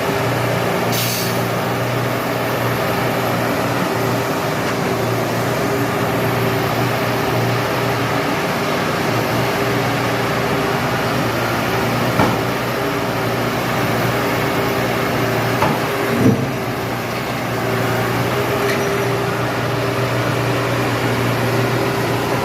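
Heavy diesel engine running steadily, with a couple of short metallic knocks about midway.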